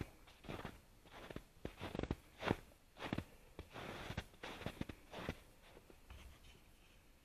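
Footsteps crunching on snow, about two steps a second, dying away near the end.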